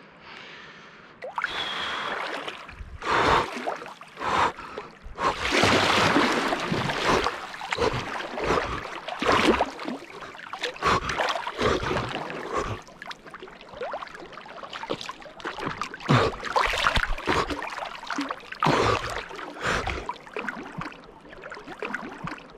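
A person swimming in a lake: irregular splashing and sloshing of water close to the microphone at the water's surface, stroke after stroke.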